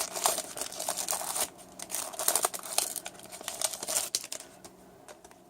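Plastic trading-card pack wrapper crinkling and rustling as it is handled and the cards are slid out, dying away after about four seconds.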